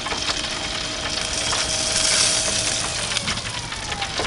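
Steady sizzling hiss from the open propane gas grill, with rotisserie turkey breasts cooking over the lit burners and a steady low hum underneath. A faint falling whine comes near the end.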